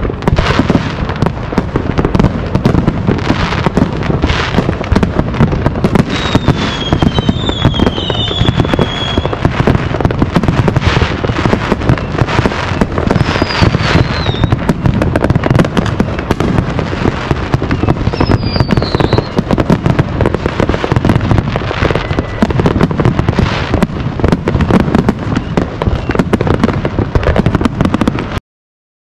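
A continuous barrage of many consumer fireworks going off at once: dense, overlapping pops, cracks and bangs. Several high whistles fall in pitch through it. The sound cuts out briefly near the end.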